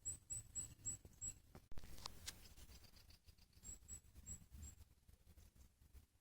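Faint runs of very high, thin chirps, about four a second, from a small bird, over soft rustling and scattered clicks, with a sharper clatter about two seconds in.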